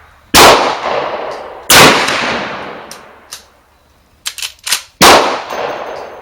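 Three loud gunshots, the first two about a second and a half apart and the third about three seconds later. Each shot trails off in a long echo, and a few quick metallic clicks come just before the third.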